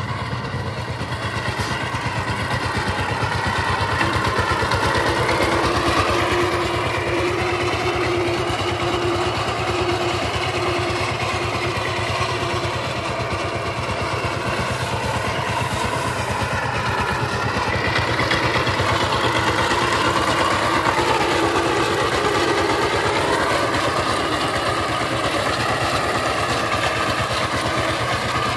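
Single-cylinder diesel engine of a two-wheel power tiller running steadily under load as it pulls a plank leveller: a rapid, even chugging. Its pitch rises and falls a little as the engine speed varies, with a brief rise near the end.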